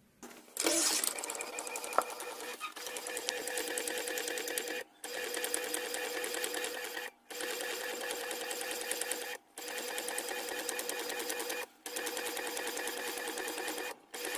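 Inkjet printer printing: the print-head carriage shuttles across the paper with a fast, even mechanical chatter. It starts about half a second in and runs in passes of roughly two seconds, each followed by a brief pause.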